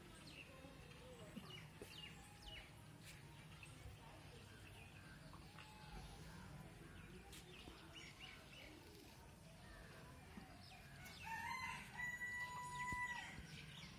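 Faint background, then near the end a rooster crows once: one long call that rises and then holds on a steady pitch for about a second and a half.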